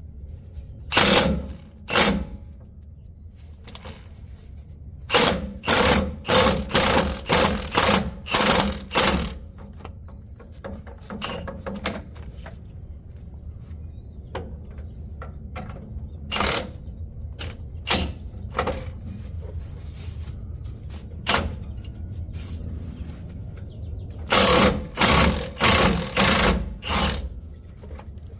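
Metal tool work on a truck's rear brake caliper: short, loud bursts in runs of several about half a second apart, with single ones between and quieter gaps over a low hum.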